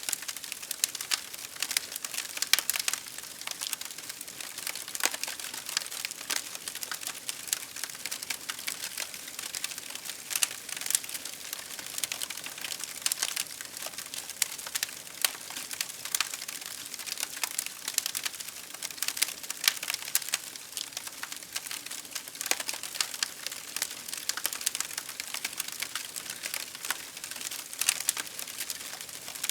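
Wood fire crackling: a steady hiss of burning with frequent irregular sharp pops and snaps.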